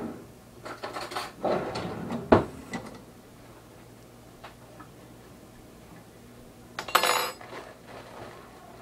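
Kitchen clatter from a sandwich being put together on the counter: things knocked and set down, ending in a sharp knock about two and a half seconds in, then a louder clatter about seven seconds in.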